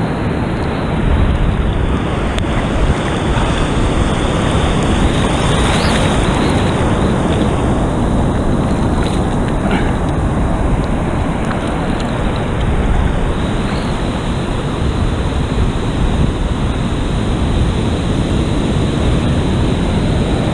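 Surf breaking and water rushing in choppy ocean swell, with wind buffeting the microphone in a steady, loud rumble.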